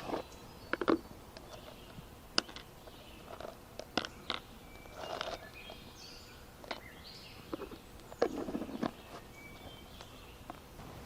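Outdoor ambience with irregular rustles and short knocks, like footsteps or gear being handled, and brief bird chirps.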